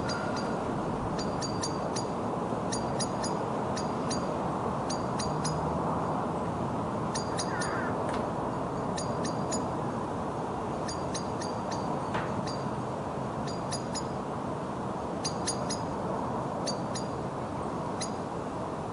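Blackbird alarm calls: short, sharp high notes in quick clusters of two to four, repeated every second or so, over a steady background rush.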